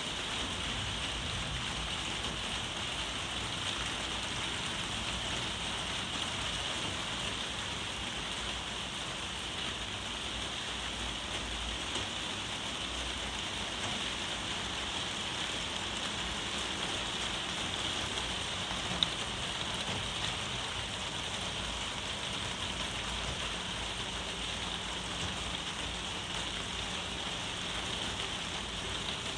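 Heavy rain falling steadily, heard from inside a conservatory as an even hiss. A single sharp tick stands out about two-thirds of the way through.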